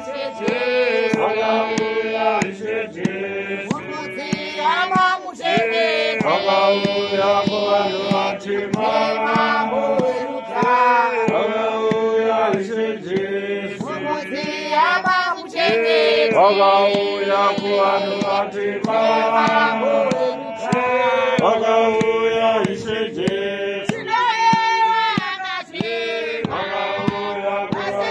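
Church congregation of women and men singing a hymn together in long, held notes.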